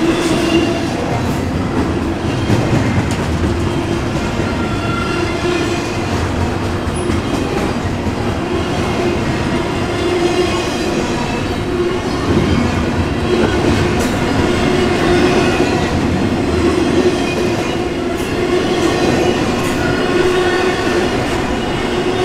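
Double-stack intermodal container cars of a freight train rolling past at speed: a steady, loud noise of steel wheels on rail, with a steady tone running underneath.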